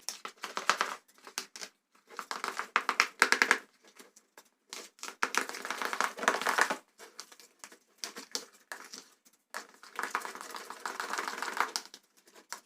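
A closed plastic container holding glue and shaving foam, shaken to mix the slime base: about five bursts of rapid clattering with short pauses between them.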